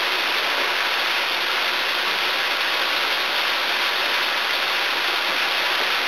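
A steady, even hiss with no breaks or changes.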